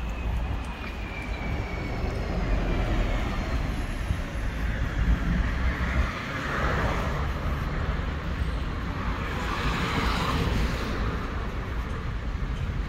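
City street traffic: a steady rumble of vehicles on the road, with two louder vehicles passing, one about halfway through and one about three-quarters through.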